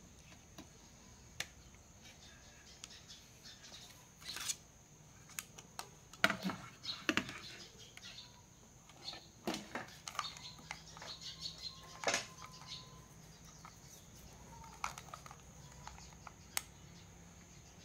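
Clicks, taps and knocks of a TV power-supply circuit board being handled and turned over on a table, loudest in a cluster about six to seven seconds in.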